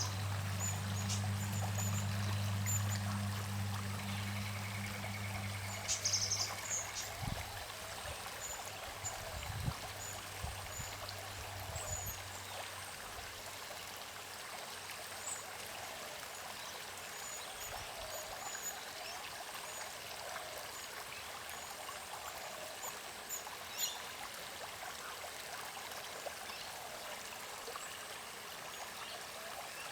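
Creek water running and trickling steadily, with small birds giving scattered short, high chirps and a brief trill about four seconds in. A low hum underneath fades out about halfway through.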